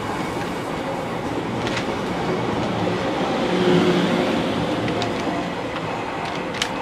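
E001-series Train Suite Shiki-shima cars running past on the rails as the train leaves the platform: a steady rumble of wheels on track that swells slightly in the middle, with a few sharp clicks over the rail near the end as the last car goes by.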